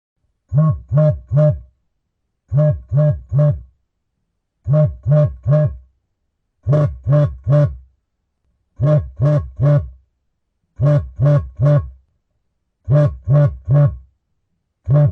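Mobile phone vibrating in a repeating pattern of three short buzzes, the groups coming about every two seconds with silence between.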